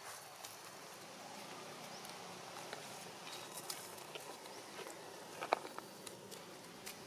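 Dry leaf litter rustling and pattering as infant long-tailed macaques scamper over the forest floor, with scattered small clicks and one sharper click about five and a half seconds in.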